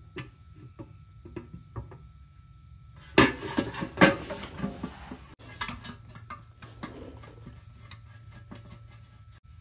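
A 700R4 transmission's stamped steel oil pan being pushed up and shifted by hand against the transmission case: light metal scrapes and clicks, with two louder clanks about three and four seconds in.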